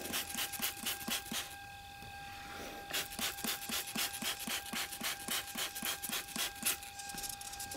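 Hand trigger spray bottle of soapy water squeezed rapidly onto a car tire, a quick train of short sprays at about five a second, with a pause of about a second and a half near the start.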